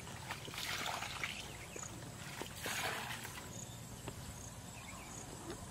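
Footsteps wading through the shallow water and mud of a flooded rice paddy: soft sloshing swishes, one about a second in and another near the middle.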